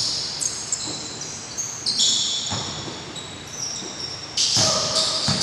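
Basketball sneakers squeaking over and over on an indoor court floor, with a few thuds of a basketball bouncing.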